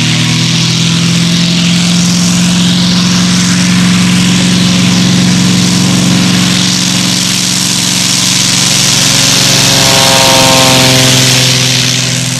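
Fletcher FU24-950 agricultural plane's eight-cylinder Lycoming engine and propeller running steadily as it taxis on the ground, with a hiss of propeller wash. The sound swells slightly near the end.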